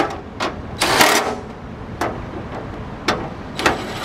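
Cordless impact driver hammering in short bursts as it tightens the 10 mm bolts on top of a car's front fender. A half-second burst about a second in and another at the end, with single clicks between.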